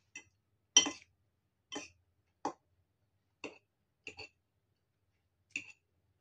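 Metal fork clinking and scraping against a ceramic bowl while twirling noodles: about seven short, irregular clinks over six seconds, the loudest about a second in.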